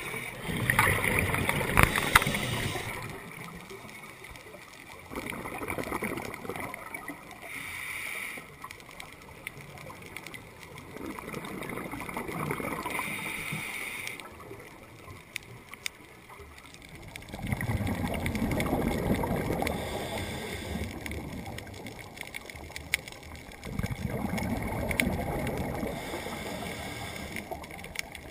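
Scuba exhaust bubbles gurgling out of a regulator underwater in bursts about every six seconds, one for each breath a diver lets out, with a quieter hiss between them.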